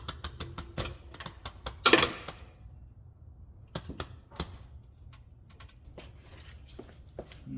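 Car being lowered onto its wheels: a rapid run of sharp metallic clicks, a louder clank about two seconds in, then scattered clicks and knocks.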